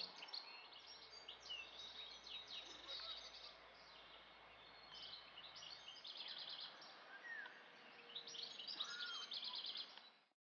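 Songbirds singing: many quick chirps and fast trills over a faint outdoor hiss, fading out abruptly near the end.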